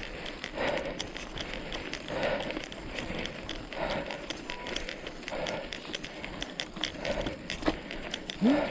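Hiker's steady heavy breathing, about one breath every second and a half, mixed with scattered clicks and scuffs of footsteps on a mountain trail. A short rising vocal sound comes near the end.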